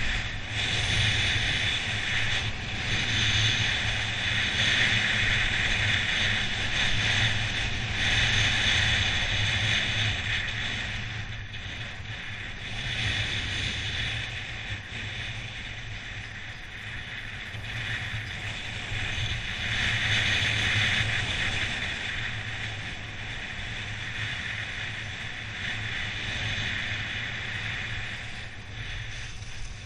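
Skis carving down a groomed piste: a hiss of ski edges scraping the snow that swells and fades every few seconds with the turns, over a steady low rumble of wind on the camera's microphone.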